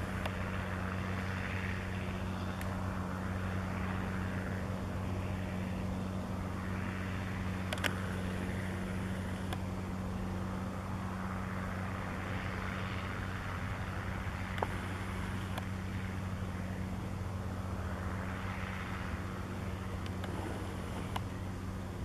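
John Deere tractor engine running steadily under load as it pulls a plough: an even low drone.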